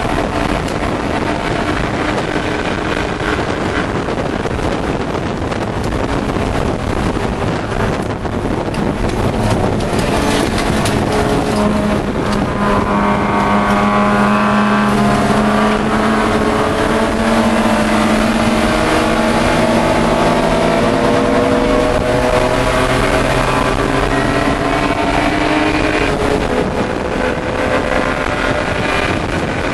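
A Pro3 BMW E30 race car's straight-six engine heard from inside the cabin, running hard at racing speed over road and wind noise. Its pitch climbs slowly through a long pull over the middle stretch, then drops near the end as the driver comes off the throttle.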